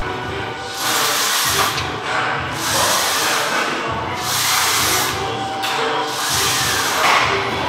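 Plate-loaded leg machines worked through repeated reps, a rushing, hiss-like noise that rises and falls about every second and a half.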